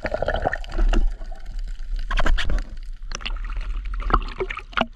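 Water splashing and gurgling around a spearfisher's camera as it breaks the surface, with irregular sharp splashes.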